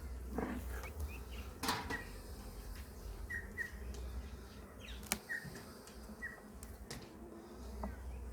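Honey bees buzzing around an open hive, with a run of short chirps through the middle and a few sharp clicks, the sharpest about five seconds in. A low rumble comes and goes underneath.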